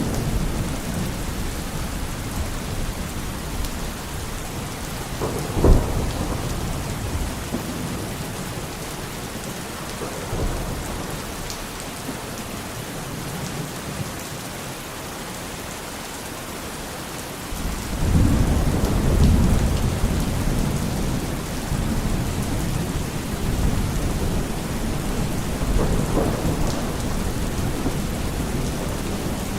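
Steady heavy rain with thunder. A short sharp thunderclap comes about six seconds in, and a long low rumble of thunder starts suddenly a little past the middle and rolls on.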